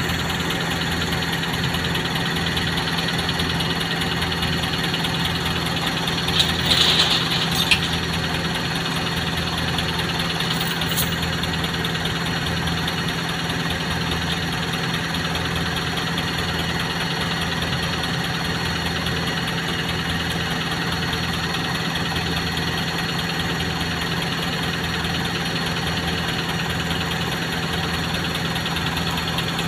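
New Holland 5640 tractor's diesel engine running steadily at low revs as the tractor creeps up the loading ramps onto a flatbed lorry. A brief louder, high-pitched sound stands out about seven seconds in.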